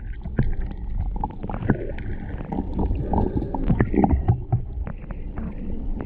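Muffled sloshing and gurgling of river water with irregular knocks and clicks, dull as if heard through a waterproof camera housing at or under the surface.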